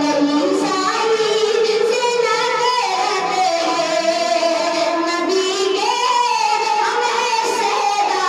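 A boy singing a poem in a melodic, chant-like style into a handheld microphone, with long held notes that glide between pitches.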